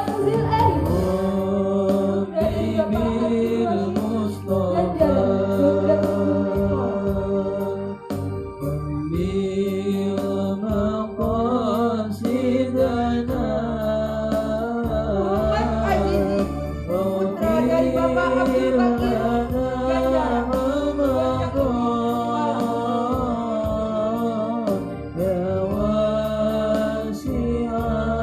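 Male students singing a melodious song together over steady instrumental accompaniment, the melody rising and falling in long sung phrases.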